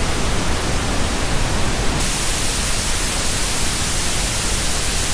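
TV static: a loud, steady hiss of white noise that turns brighter and harsher about two seconds in.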